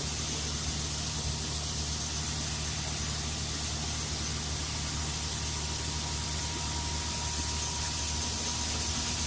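Tractor engine running steadily, heard from inside the cab, with a steady even hiss over it.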